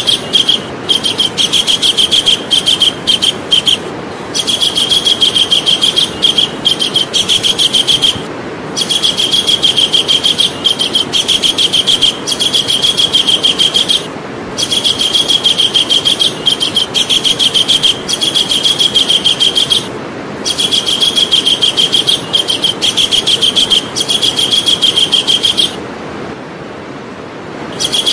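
Javan kingfisher calling in long, rapid trills of sharp repeated notes, each run lasting a few seconds, with brief breaks between runs and a longer pause near the end, over a steady background hiss.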